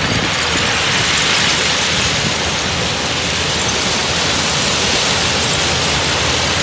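Shantui bulldozer running steadily: a loud, even rushing noise over a faint low engine hum.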